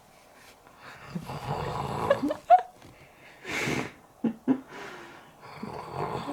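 Exaggerated comic snoring voiced for a puppet. A rough rumbling snore comes about a second in, then a short hissing breath out a little past halfway, and another snore starts near the end.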